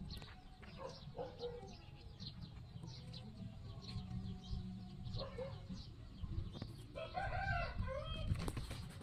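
A rabbit chewing watermelon, with faint clicking crunches, while birds call in the background. A louder run of pitched calls comes about seven seconds in and lasts a second and a half.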